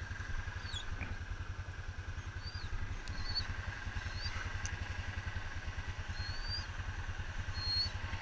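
Yamaha Rhino side-by-side's engine idling with a steady, low, even chug. A few short bird chirps sound over it.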